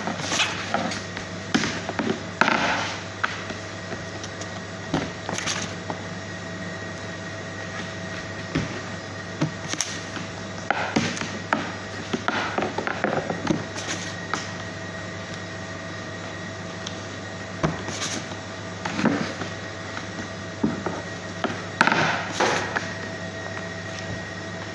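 Hands working dough in a plastic tub of crumbs and setting the pieces on a stainless steel baking tray: irregular soft knocks, taps and rustles, a dozen or so, over a steady machine hum.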